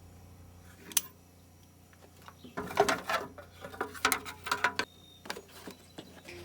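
Scattered short clicks and light knocks of hand tools working on an air conditioner's fan and shroud as it is taken apart: one click about a second in, then a busy run of them through the middle, over a faint steady hum.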